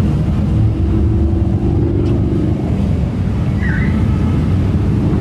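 Many motorcycle engines running as a stream of bikes rides past, a loud, steady low drone. One engine's tone stands out for a couple of seconds near the start.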